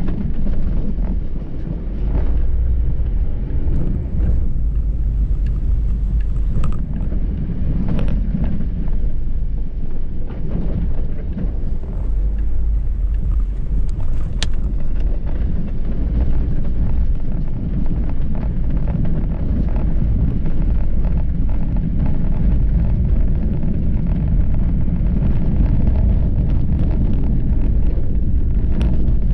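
Car driving over a rough, potholed dirt road, heard from inside the cabin: a steady low rumble of tyres and engine with scattered knocks and bumps from the uneven surface.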